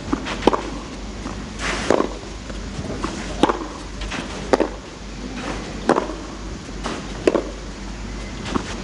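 Tennis ball struck back and forth by rackets in a baseline rally, with a sharp hit about every one to one and a half seconds.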